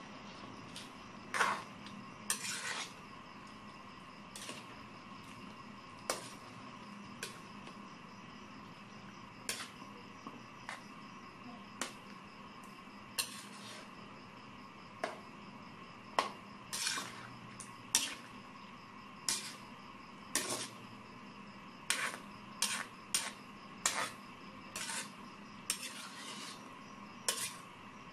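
Metal spatula knocking and scraping against a metal wok while stirring bottle gourd and pork in broth: irregular sharp clinks, more frequent in the second half, over a faint steady hiss.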